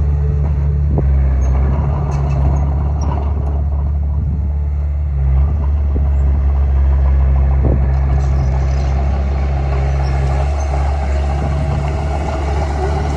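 Bulldozer's diesel engine running steadily under load while pushing soil, with a few brief knocks.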